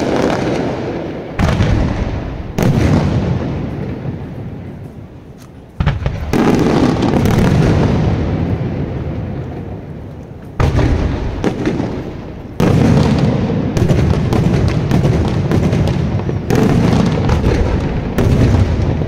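Daytime firework shells bursting in the sky in a series of loud bangs, some a second apart and some several seconds apart, each trailing off in a long rumbling echo.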